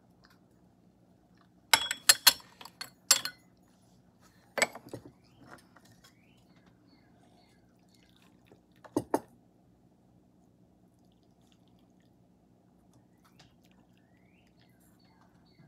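Teaware clinking as cups and pot are handled and set down during tea brewing: a quick cluster of sharp clinks about two seconds in, single clinks near three and five seconds, the second ringing briefly, and a double clink near nine seconds.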